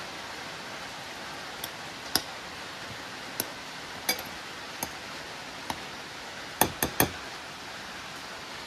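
Stainless steel tongs clinking against a ceramic bowl as a sponge cake cube is turned in strawberry syrup: scattered sharp clicks, with three quick ones close together near the end, over a steady hiss.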